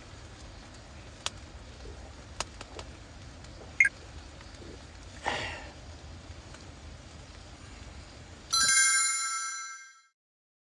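A few faint clicks and small knocks over quiet background hiss, then a bright bell-like chime that rings out and fades over about a second and a half.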